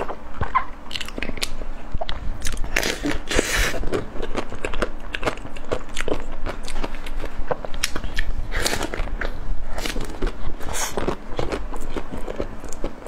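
Bites into a green mango dessert and chewing, with many wet mouth clicks and smacks throughout.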